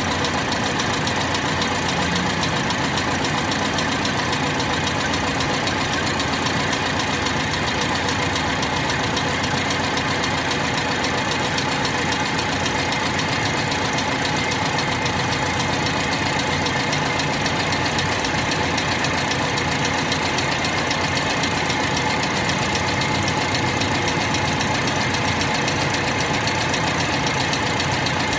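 Older car's engine idling steadily, an even unchanging run with no revving.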